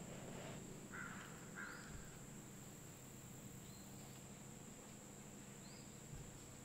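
Steady high-pitched insect chorus of crickets in woods, with two short bird calls about a second in and a few faint chirps later.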